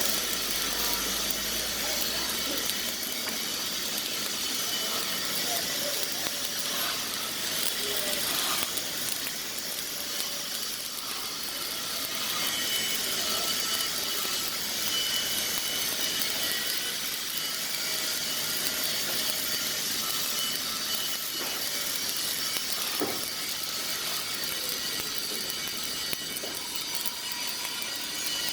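Stick-welding arc burning a 1/8-inch 7018 low-hydrogen electrode, a steady hiss held without a break as a bead is run.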